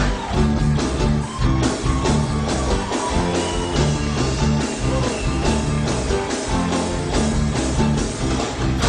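Instrumental band music with a steady drum beat, bass and guitar, and no singing.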